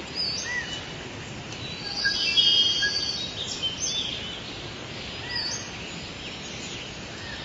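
Outdoor ambience: scattered short, high chirps and calls over a steady hiss, busiest and loudest about two to three seconds in.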